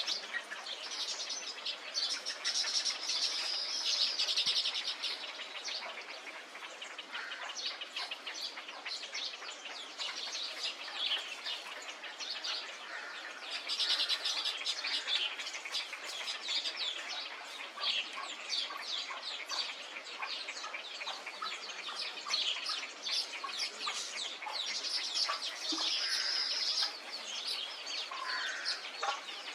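Dense chorus of many birds calling and chirping at once, a steady din of overlapping short calls with louder swells every few seconds.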